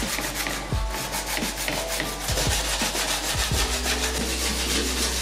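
Sandpaper on a hand sanding block rubbed quickly back and forth along the edge of a cured fiberglass panel, a fast, even rhythm of scratchy strokes.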